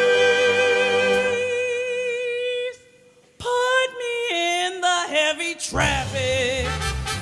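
Music: a singer holds a long note with vibrato that fades away, then after a short pause sings brief unaccompanied phrases. About six seconds in, instruments with a low bass part come in underneath.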